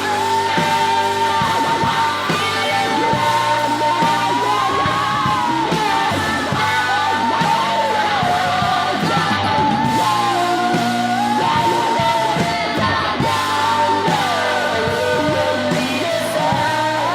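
A rock song playing: a voice sings long held notes that slide up and down over a full band.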